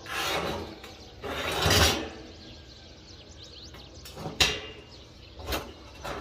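Two short rushing, scraping noises, then two sharp knocks about a second apart, with birds chirping faintly.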